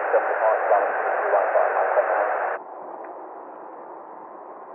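Air traffic control radio transmission: a tinny, narrow-band voice over static that cuts off abruptly about two and a half seconds in, leaving a quieter steady radio hiss on the open channel.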